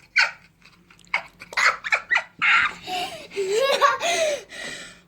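A child laughing in short breathy bursts, with a longer voiced laugh that rises and falls near the end.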